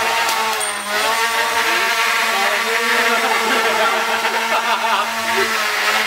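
Cordless Dremel rotary tool's brushed motor running flat out with a small propeller on its shaft, a steady buzzing whine at an even pitch. The small propeller gives too little thrust to lift the tool off its skids.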